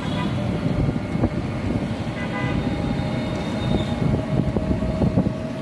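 Steady rumble of an open rickshaw riding along a paved city street, with traffic noise around and a few short knocks from the vehicle.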